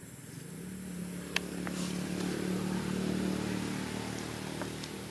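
A motor vehicle's engine running at a steady pitch, growing louder to a peak about three seconds in and then fading as it passes by, with a few sharp clicks along the way.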